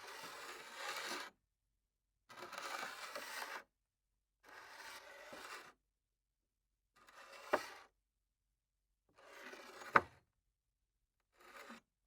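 A cup sliding across a table top: about six separate scrapes of roughly a second each, a second or so apart, the last few ending in a sharp knock as the cup stops.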